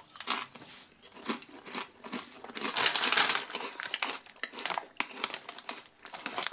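A plastic crisp bag of Lorenz Crunchips crinkling and crackling as it is handled in the fingers. The crackling is densest and loudest about three seconds in.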